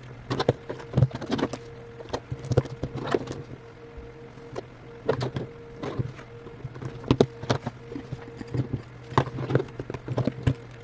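Irregular small clicks and taps of tools working against an iPhone 8 as its glued screen is pried off, over a faint steady hum.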